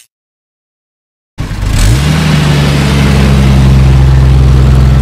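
Car engine running after silence: it comes in abruptly, rises briefly in pitch, then holds a steady drone.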